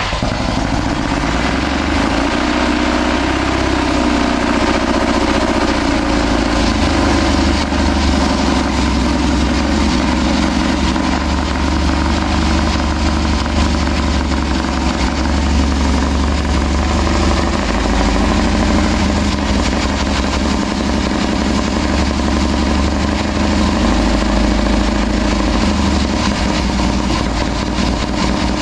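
1928 BMW R 47's 494 cc flat-twin engine idling steadily, freshly started from cold.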